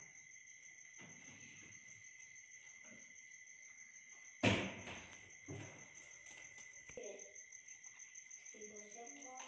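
Steady, evenly pulsing trill of insects, likely crickets, at a low level. About halfway through comes a loud sudden knock, followed by a few fainter knocks and a short voiced sound near the end.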